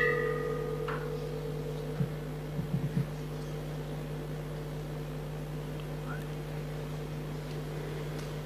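The ring of a bell-like strike fades out in the first second. A steady hum with a couple of constant tones follows, likely from the video's soundtrack played over the hall's sound system.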